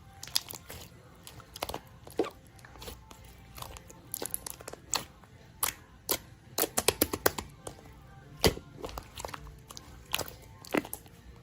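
Slime being squished and stretched by hand, giving irregular sharp clicks and pops, several a second, with the loudest about two-thirds of the way through.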